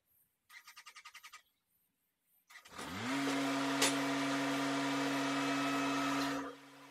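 Compact tractor engine starting up: a brief quick run of clicks, then about two and a half seconds in the engine sweeps up in pitch and settles into a steady run. Near the end the sound drops sharply in level while the engine's steady tone carries on faintly.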